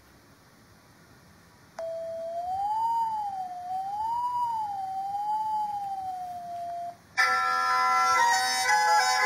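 A single pure electronic tone glides smoothly up and down, rising and falling twice over about five seconds: the SoundTracer app sounding out a gesture traced in the air. It stops, and just after, a folk music recording starts abruptly.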